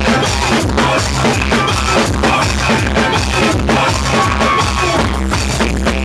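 Loud dance music with a steady beat and heavy bass, soca played on the boat's sound system.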